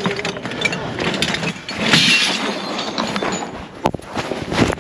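Scrap copper pipe offcuts and brass fittings clattering and clinking against each other in a plastic tub as it is handled, with a denser rattle about two seconds in and a few sharp clanks near the end.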